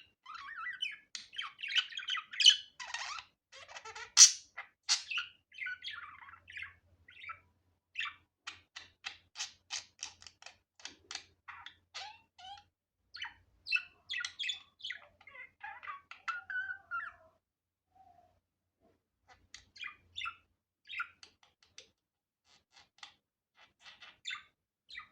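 Budgerigar chattering and warbling, breaking into a run of short, quick chirps about a third of the way in, with more warbling, a brief pause, then scattered chirps.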